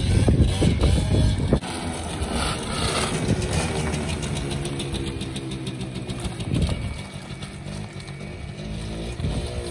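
Suzuki LT80 quad's 80cc two-stroke engine, loud and hard on the throttle at first, then after about a second and a half dropping suddenly to quieter, steadier running at low throttle, with small rises in revs.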